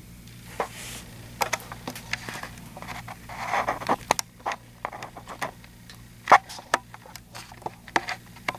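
Close-up handling noise: scattered clicks, taps and a short rustle as the camera and things near it are touched and fumbled with, over a steady low hum.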